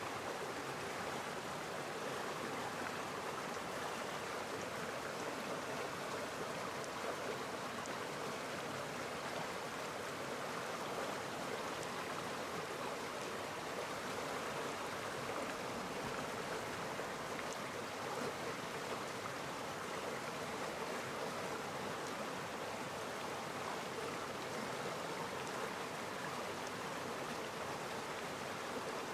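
Running water of a stream, a steady, even rushing that does not change.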